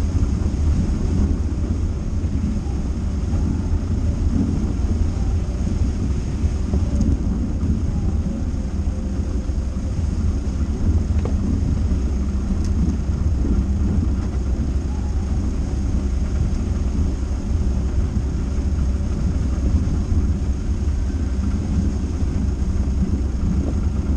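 Dacia Duster driving: a steady low rumble of engine and tyres that holds even throughout.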